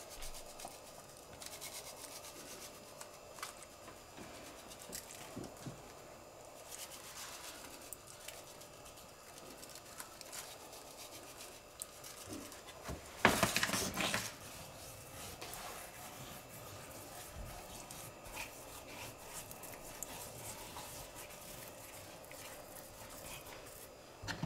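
Dry rub shaken from a foil seasoning packet onto raw beef ribs: faint rustling of the packet and pattering of falling granules, with a louder burst of rustling about halfway through.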